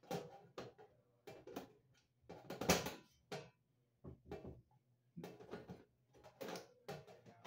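Hand screwdriver turning a screw into the sheet-metal back of an electric range: irregular scraping and clicking in short spells a second or so apart, the loudest about two and a half seconds in.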